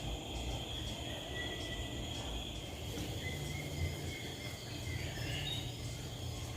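Outdoor ambience: insects chirring steadily at a high pitch, with a few faint short chirps in the middle and a low rumble underneath.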